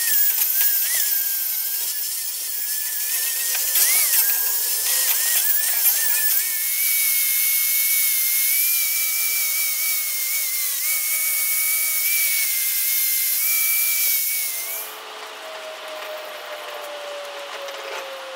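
Corded angle grinder with an abrasive disc grinding rust off a steel plant stand: a steady high motor whine over gritty grinding noise. About 15 seconds in the grinding stops abruptly and the whine slowly falls in pitch as the grinder spins down.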